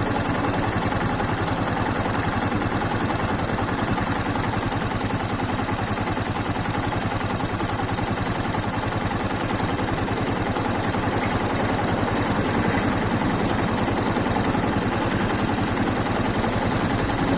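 Honda SL230's air-cooled single-cylinder engine idling steadily with a fast, even clatter from the valve train. The owner takes the clatter for tappet noise from excessive valve clearance.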